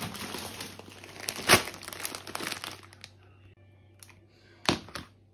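Plastic food packaging, bags of frozen vegetables, crinkling as it is handled and stacked, loudest about a second and a half in. It dies down after about three seconds, with one short sharp crackle near the end.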